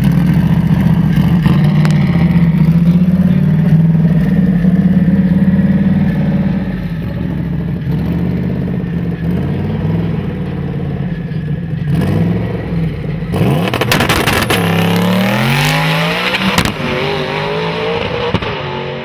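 Ford Mustang 5.0 V8 running loudly and steadily as it rolls up to the line, then lower and uneven for several seconds. About thirteen seconds in it launches hard, and the engine pitch climbs and drops several times as it shifts up through the gears before fading away down the strip.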